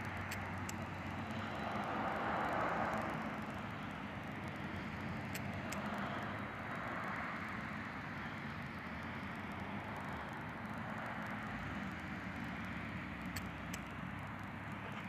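Outdoor road traffic: a steady rush of vehicle noise over a low hum, with vehicles passing about two and a half and six and a half seconds in, and a few faint ticks.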